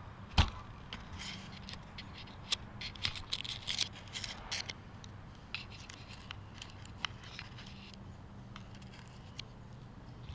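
Scattered light clicks and scrapes of a hand handling a bodyless radio-controlled SC10 truck's chassis and camera mount, picked up close by the onboard camera's microphone. One sharper click comes about half a second in and a busier patch follows a few seconds later, over a faint steady low hum.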